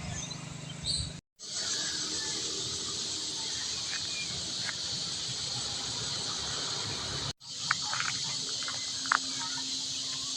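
Steady high-pitched insect chorus in tropical countryside, with a few short chirps and a sharp click in the last few seconds. The sound cuts out abruptly twice, about a second in and again after about seven seconds.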